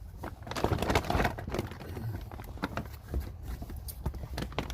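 Irregular clicks, taps and rustles of items and packaging being handled and set down.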